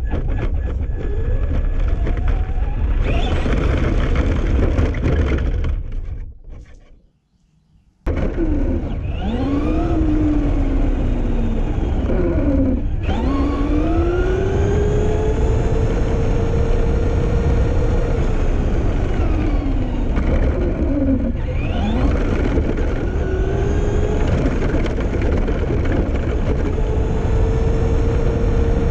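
Onboard sound of a Traxxas Slash 2wd 1/10-scale electric RC truck driving: a motor and gear whine that rises and falls with the throttle, dropping away sharply a few times as the throttle is let off, over a steady rush of tyre and wind noise. The sound fades out about six seconds in and returns suddenly two seconds later.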